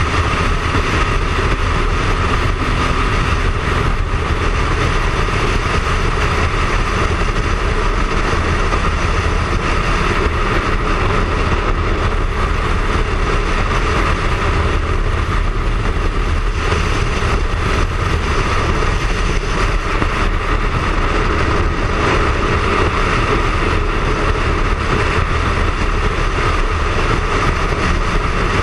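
Triumph Speed Triple's three-cylinder engine running steadily at highway cruising speed, under heavy wind rush over the on-board camera.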